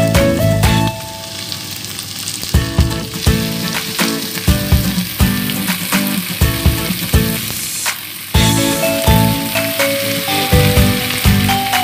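Onions, ginger and garlic sizzling in hot oil in a wok as raw chicken pieces are dropped in, with a few knocks as they land. Background music with a beat plays over it for about the first second and comes back about eight seconds in.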